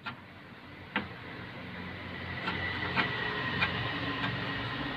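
Two metal clicks about a second apart as the gear selector shaft is worked out of the Maruti 800 gearbox housing. Then a steady mechanical hum with a high whine and a few light ticks from a machine running in the background.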